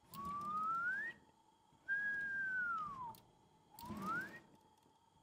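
A man whistling through pursed lips in a wolf whistle: a rising glide, a pause, then a long falling glide, and near the end a second whistle begins with another quick rise.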